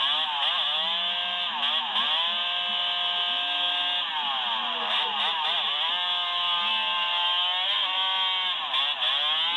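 Yamaha Banshee quad's two-stroke twin engine revving hard in repeated surges: the pitch climbs, holds high for a second or two and drops back, about three times. The sound is thin, with no bass.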